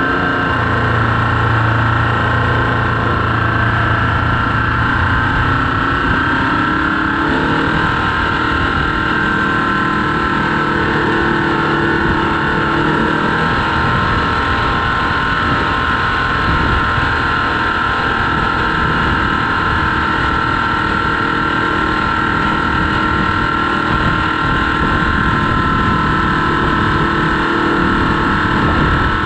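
Oliver farm tractor's diesel engine running steadily under power as the tractor drives through snow, with a steady whine over the engine note.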